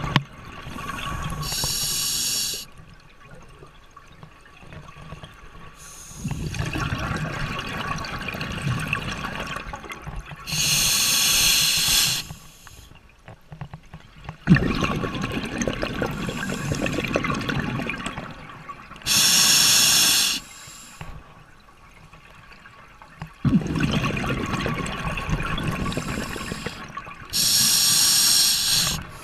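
A scuba diver breathing through the regulator underwater: four short hisses as air is drawn through the demand valve, each followed by a longer burst of bubbles from the exhaust, about once every eight seconds.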